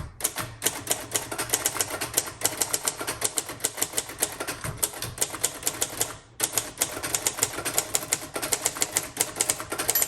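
1958 Royal Futura 800 manual typewriter being typed on fast: a rapid run of key strikes, several a second, with a short pause about six seconds in. Near the end the margin bell rings, warning that the line is nearly full.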